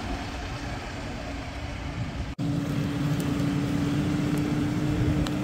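A vehicle engine running steadily with a constant hum, dropping out for an instant a little over two seconds in.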